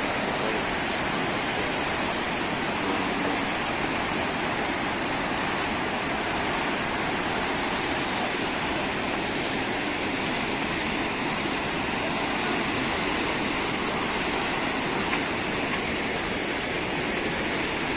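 Fast, flood-swollen mountain river rushing: a loud, steady roar of water that does not change.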